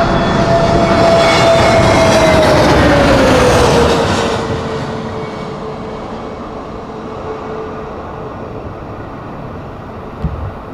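Boeing 737-800's CFM56 jet engines roaring as the airliner passes on landing, their whine falling in pitch about three seconds in as the sound fades to a quieter, steady roar. A brief thump near the end.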